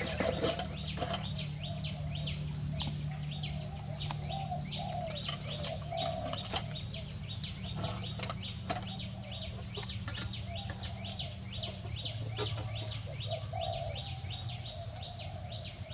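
Birds chirping in many quick, short, high calls, with lower wavering calls now and then and a steady low hum underneath.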